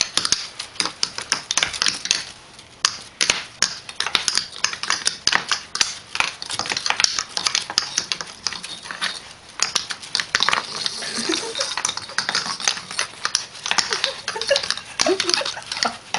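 Rapid, irregular clicking and scratching of a kitten's claws scrabbling on a wooden floor as it wrestles a hand puppet.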